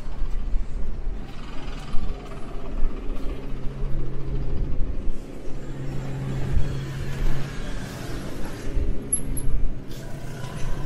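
City street traffic: a city bus's engine running, with cars passing.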